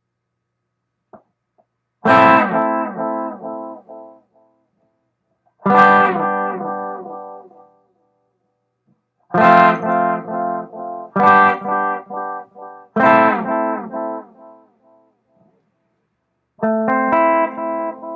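Electric guitar (Fender Telecaster) strumming six chords, each followed by a quick train of fading echo repeats from a Tachyon Delay pedal set with its flux knob fully clockwise, its clean setting, so the repeats stay clean.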